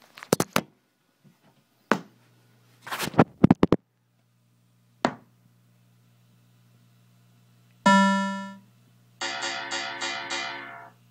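Bally Who Dunnit pinball machine starting up: a few sharp clicks and knocks, then a low steady hum sets in. About 8 s in a single bong rings and fades, followed by a short run of about six quick tones from the machine's sound system, its start-up sounds during the boot test.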